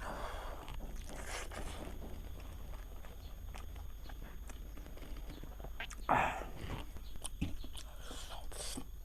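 Eating sounds: chewing and biting with scattered small clicks, and a few short noisy bursts, the loudest about six seconds in. A steady low hum lies under it all.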